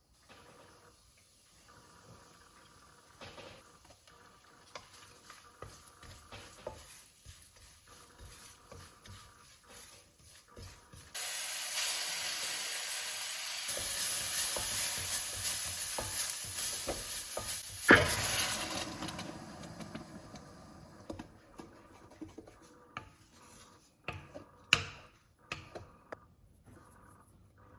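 Food sizzling in hot oil in a cooking pan, starting suddenly about a third of the way in and dying away after several seconds. Clinks and scrapes of a spoon stirring in the pan come before and after it, with one sharp knock near the end of the sizzle.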